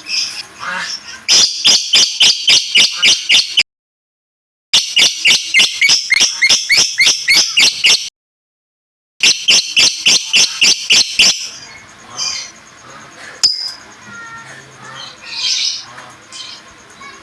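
A songbird giving a fast series of sharp, shrill chirps, about five a second, in three runs that stop abruptly into dead silence. These are followed by softer, irregular chirping and twittering.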